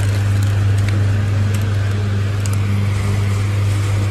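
A steady low hum dominates throughout, with a few faint crinkles of plastic noodle packets being handled on a wire shelf.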